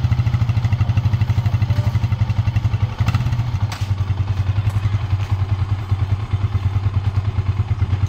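Yamaha Sniper 150's single-cylinder four-stroke engine idling steadily after a top-end overhaul with new piston, pin and rings, its exhaust beating in quick, even pulses. It settles a little quieter about three seconds in.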